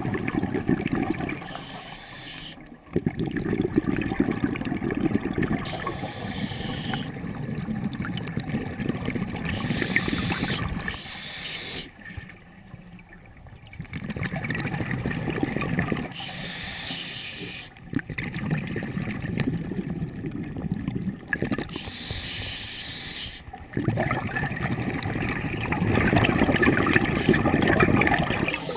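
Scuba diver breathing through a regulator, heard through the camera's underwater housing. The exhaled bubbles rumble and gurgle for two to four seconds at a time, about six times, and each burst alternates with the thinner hiss of an inhalation.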